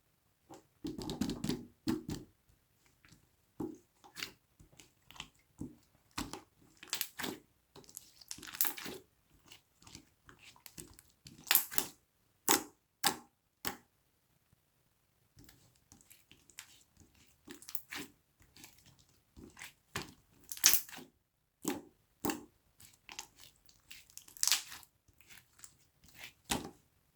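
Irregular crackling, clicking and squishing of something soft being worked by hand. The sharp pops and short crackly bursts come every second or so, with a pause of about a second and a half near the middle.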